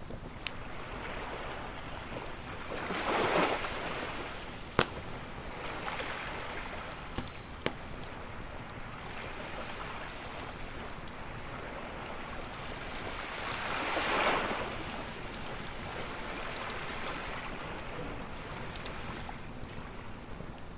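Ocean waves washing onto a beach, two waves swelling and falling back about ten seconds apart, over a campfire's steady crackle with a few sharp pops of burning wood, the loudest about five seconds in.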